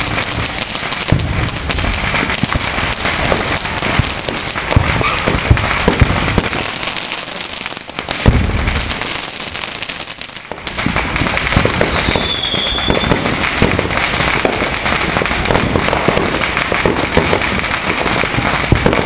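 Many fireworks going off at once: a dense, continuous crackling and popping with louder bangs about six and eight seconds in. A brief high whistle sounds about twelve seconds in.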